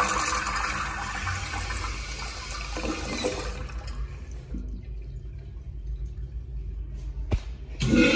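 American Standard Trimbrook urinal flushing: water rushing through the bowl, dying away about four seconds in.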